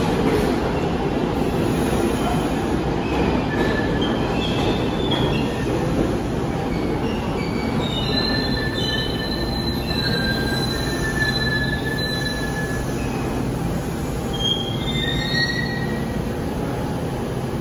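An R68 subway train's cars rumbling past as it slows into the station, with short, high-pitched wheel and brake squeals coming one after another from about three seconds in. The train is braking to a stop.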